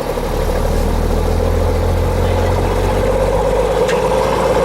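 Military 5-ton truck's engine running with a steady low drone. It gets louder right at the start and eases slightly near the end.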